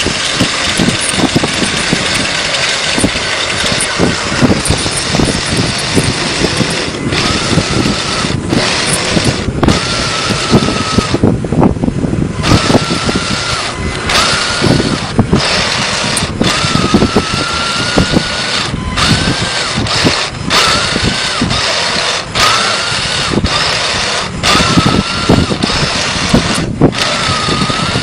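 A 3839 M41A3 Walker Bulldog 1:16 RC tank on the move: its small electric motors whine in repeated short spells of about a second each, over a constant clattering and crackling from the running gear and metal tracks.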